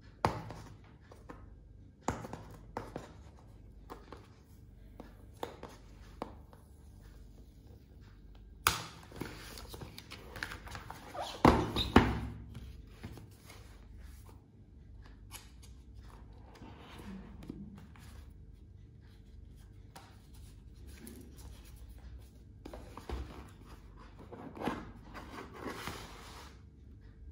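Hands handling a cardboard product box and its paper inserts: taps and knocks on the card, with rustling and sliding as the lid is opened and the contents lifted out. The loudest scraping comes in a cluster near the middle.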